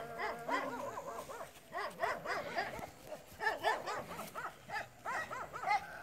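Dogs barking over and over in short, repeated barks.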